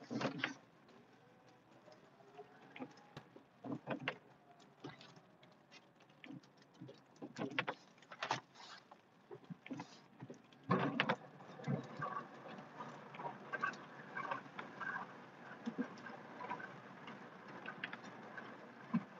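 Cab noise of a pickup truck plowing snow with a Western WideOut XL plow, heard from inside the cab: irregular knocks and clunks from the truck and plow, with a run of short squeaks in the second half.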